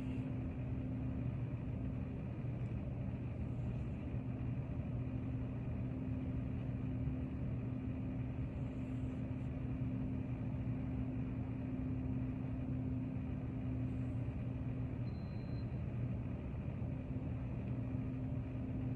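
Steady low mechanical hum of room background noise, with a constant low tone and no change in level.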